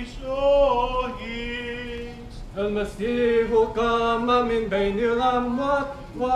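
A man's voice chanting an Orthodox liturgical hymn, holding long notes with ornamented turns. There is a short break about two and a half seconds in.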